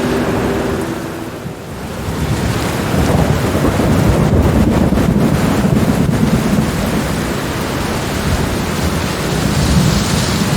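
Steady rain with a long, low rumble of thunder that swells about two seconds in and rolls on.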